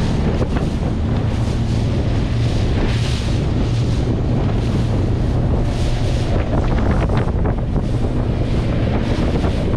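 Inflatable boat's outboard motor running at speed over choppy water: a steady engine hum under heavy wind buffeting on the microphone, with the hull slapping on the chop.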